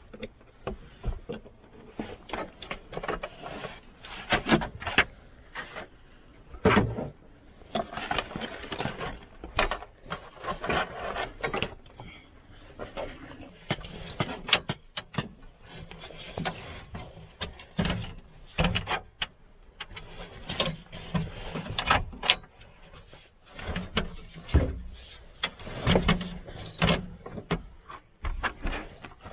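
Objects being handled and set down: a long run of irregular knocks, clicks and clatter with rustling in between.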